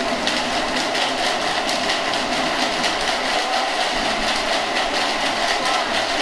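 Gumballs rattling inside empty plastic soda bottles as several players shake the bottles hard at once, making a dense, continuous clatter of many small clicks.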